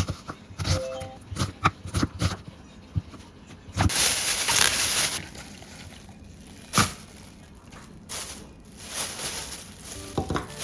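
Kitchen cooking sounds: scattered knocks and clicks of utensils and cookware, with a hiss lasting about a second and a half starting about four seconds in, and a softer one near the end.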